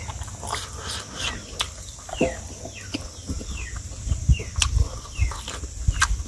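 Birds chirping repeatedly in short calls that fall in pitch, about two a second. Close-up eating sounds run alongside: chewing, lip smacks and clicks, which cluster about four to six seconds in.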